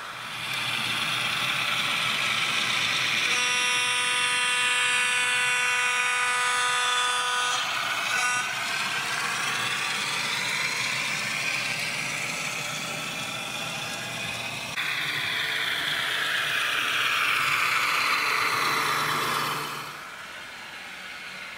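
Sound-decoder audio from an N scale model of an E5A diesel streamliner as it runs: a steady diesel engine sound, with one long horn blast about three seconds in lasting about four seconds and a brief toot near eight seconds. The sound drops away near the end.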